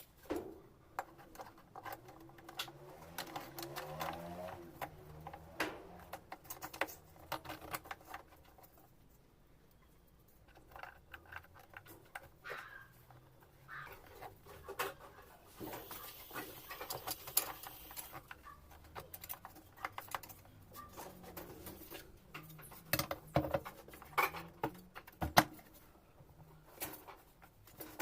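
Scattered light clicks, taps and knocks of small parts being handled and fitted while a washing machine's drive mechanism is put back together by hand, with a few sharper knocks a little after the middle.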